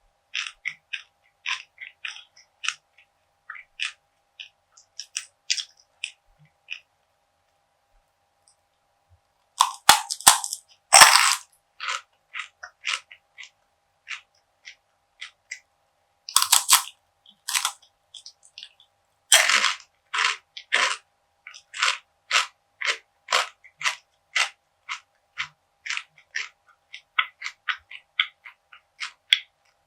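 Close-miked crunching and chewing of crisp perilla seed brittle (deulkkae gangjeong). A few light crunches, a short pause, then loud bites about ten, sixteen and nineteen seconds in, followed by steady chewing crunches about two a second.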